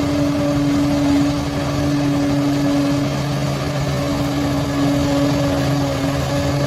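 Bulldozer's diesel engine running at a steady speed, a constant hum that holds one pitch throughout.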